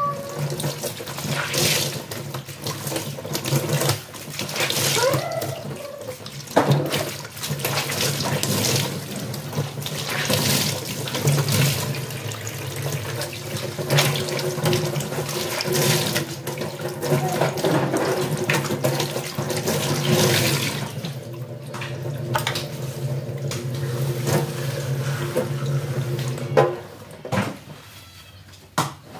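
Running water with a steady low hum under it and occasional knocks. It cuts off suddenly about 26 seconds in.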